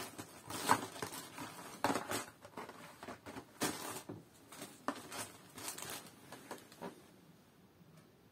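Plastic packaging crinkling and rustling in irregular bursts as the knife is handled on it and set down, dying away near the end.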